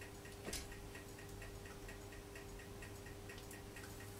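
Faint, even ticking at about four ticks a second over a low steady hum, with a single click about half a second in.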